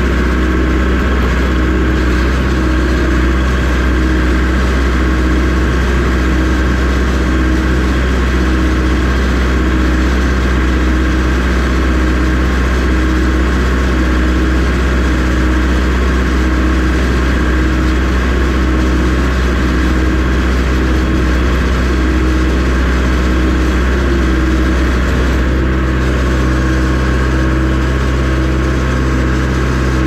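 Engine of an old Bobcat M970 skid-steer loader running steadily as it drives through snow, heard loud and close from inside its cab: a deep hum with a pulsing higher note, its sound changing slightly near the end.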